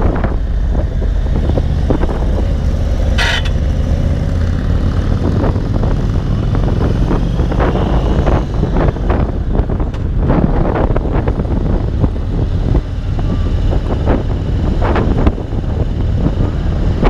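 Indian Springfield Dark Horse's Thunder Stroke 116 V-twin running steadily at cruising speed, with wind buffeting the microphone.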